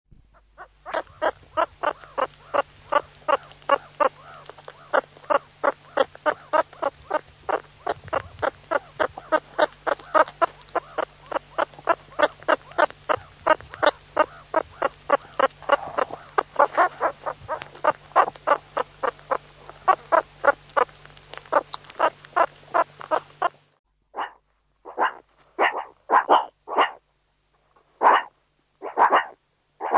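Meerkat calls: a fast, even run of short repeated calls, about four a second, over a steady background hum. About 23 seconds in, the recording changes to a quieter one with fewer, longer calls spaced about a second apart.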